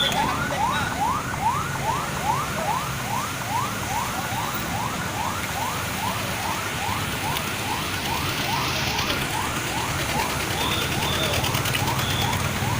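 Emergency-vehicle siren on a fast yelp: a rising wail that repeats about three times a second without a break, over a low rumble of engines.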